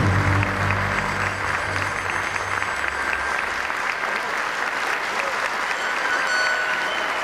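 Concert-hall audience applauding steadily during the curtain call, while the final low note of the music dies away over the first three seconds.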